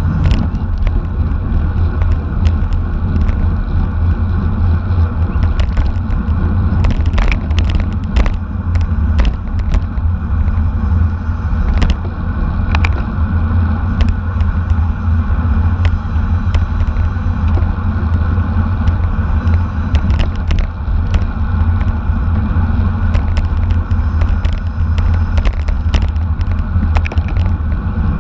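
Wind buffeting the microphone of a bicycle-mounted camera at racing speed: a steady heavy rumble with road noise, and scattered sharp clicks throughout.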